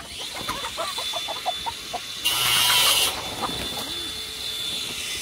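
Hens clucking in a quick run of short calls, then a loud rush of noise lasting under a second about two and a half seconds in, with a faint steady high whine underneath.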